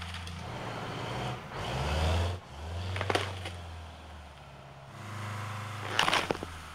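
Oshkosh LVS truck's diesel engine pulling under load on a tow strap, swelling louder about two seconds in. Sharp cracks come about three seconds in and again in a quick cluster near the end, as a tree stump splits and its roots tear loose.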